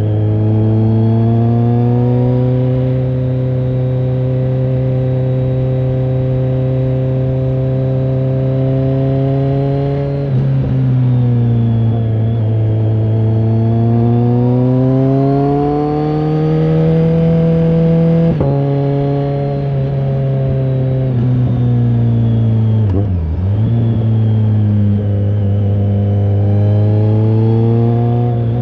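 BMW K1300R's inline-four engine running through an AC Schnitzer aftermarket exhaust under way. The pitch holds steady, then climbs. It drops sharply at gear changes about a third of the way in and again past halfway, and briefly dips and picks back up near the end.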